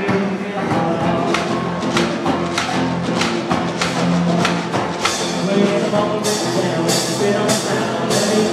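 One-man band playing rock: a rhythm on electric guitar over a steady beat on a back-mounted drum, struck a little under twice a second. In the second half the strikes turn into bright cymbal crashes.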